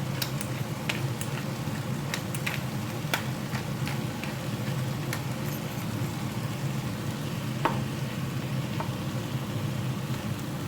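Chopped potatoes and onions frying in olive oil in a pan: a steady sizzle with scattered small pops, over a steady low hum.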